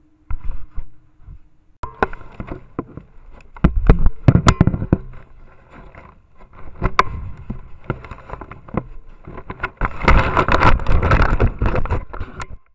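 Black bear pawing and shoving a trail camera: irregular clusters of knocks, bumps and scraping against the camera housing, close on the camera's own microphone, with vegetation rustling as the camera is pushed into the plants. The sound cuts off suddenly near the end.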